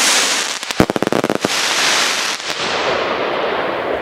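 Firework fountain hissing loudly as it sprays sparks, with a fast run of sharp crackling cracks about half a second in. The hiss fades away over the next couple of seconds.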